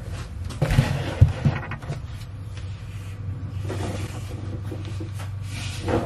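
A plastic shopping bag rustling as it is handled and set down on a table, with a few sharp knocks about a second in and more handling noise near the end.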